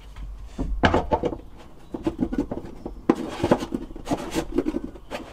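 Wooden knocks, clatter and rubbing as a small storage locker in a wooden sailing dinghy is opened and handled, with sharp knocks about a second in and again around three seconds in.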